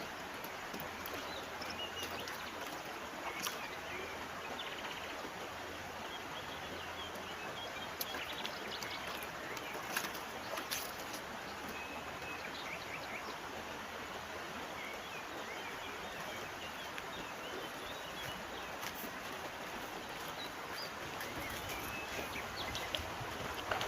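A stream running steadily, with birds chirping now and then and a few short sharp clicks.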